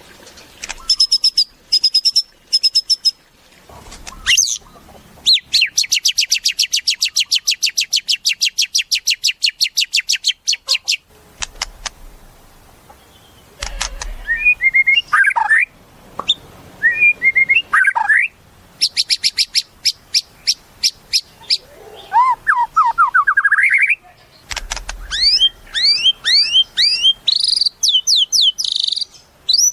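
White-rumped shama (murai batu) singing a varied song: clear whistled notes that slide up and down, broken by long fast rattling runs of repeated notes.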